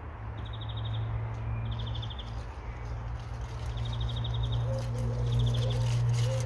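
A bird repeating a short, rapid, high trill four times, each about half a second long, over a steady low hum.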